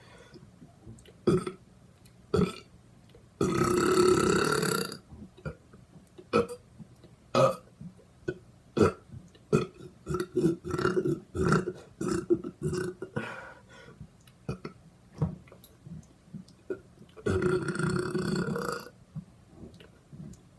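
Repeated belching: a string of short burps, and two long drawn-out burps of about a second and a half, one about three and a half seconds in and one near the end.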